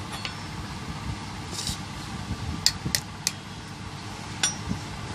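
Steady low background hum with a few light, sharp clicks: three in quick succession around the middle and another near the end.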